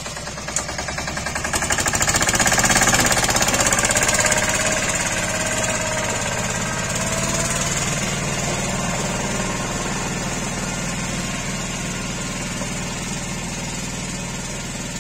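Single-cylinder Lombardini diesel engine of a two-wheel 'patpat' tractor chugging under load as it pulls a trailer of hazelnut sacks off a ramp. It is loudest a few seconds in as it pulls away, then settles to a steady run that slowly fades as it drives off.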